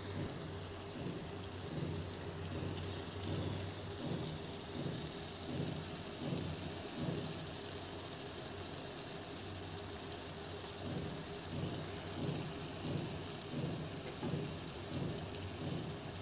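Spiced onion masala frying in mustard oil in a pan, a steady sizzling hiss as raw chicken pieces are laid into it, with a low pulsing rumble underneath.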